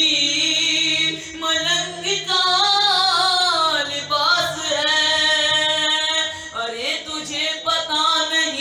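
A boy's voice singing an Urdu devotional manqabat through a microphone, holding and bending long drawn-out notes without clear words.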